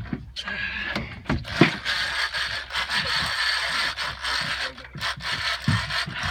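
Heavy big-game fishing reel running under load from a large goliath grouper on the line: a steady mechanical ratcheting buzz, with a few dull low thumps.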